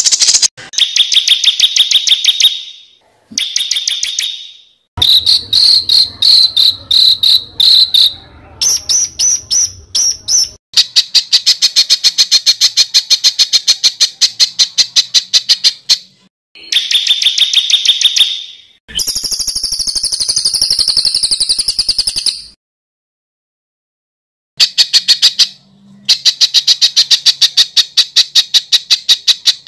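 Masteran tutor recording for contest songbirds: spliced segments of high-pitched bird chirps and fast insect-like trills. The segments start and stop abruptly, with a silence of about two seconds a little past the middle.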